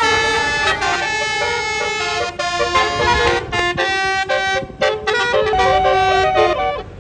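Basuri telolet bus horn playing a tune: a melody of held horn notes stepping up and down in pitch.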